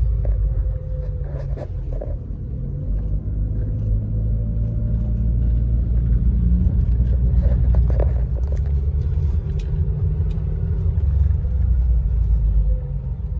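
Peugeot 406 being driven, heard from inside the cabin: a steady low engine and road rumble that swells a little toward the middle, with one brief knock a little past the middle.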